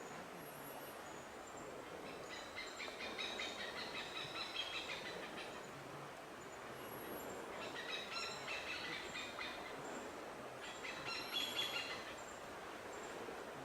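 Birds chirping in three bouts of quick repeated notes over a steady background hiss.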